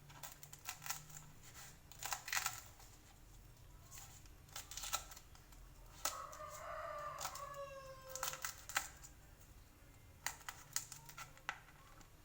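Knife cutting guava leaves, a string of sharp, irregular cuts. About six seconds in, a rooster crows once for about two seconds, its pitch falling at the end.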